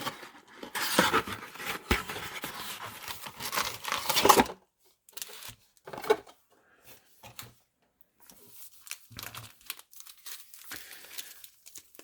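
A box of trading cards being torn open, its wrapping crinkling and tearing for about four and a half seconds. After that come sparse, faint rustles and taps as the box contents are handled.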